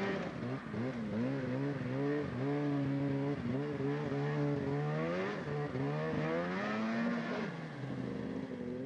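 Polaris XC snowmobile's two-stroke engine revving up and down over and over, easing off near the end.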